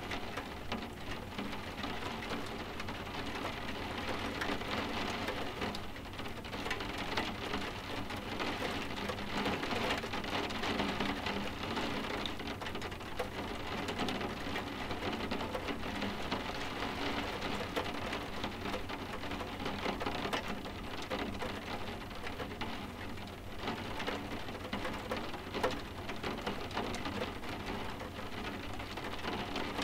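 Soft, steady rain falling, an even wash of many small drop taps with no breaks.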